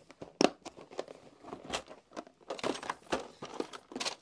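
Small clear plastic drill containers clicking and knocking against a plastic storage case as they are packed into it. The sound is a string of irregular taps and clatters.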